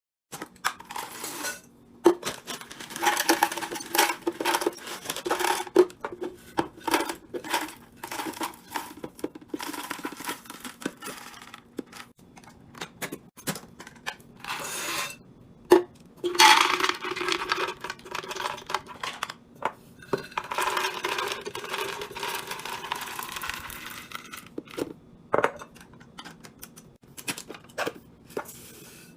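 Restocking and organizing sounds: containers and packaged items being handled and set down, with many sharp clicks, clinks and knocks, and a few longer stretches of rustling, tearing or pouring.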